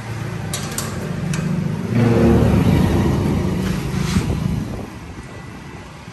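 A motor vehicle's engine running, rising sharply in level about two seconds in and fading after about four seconds.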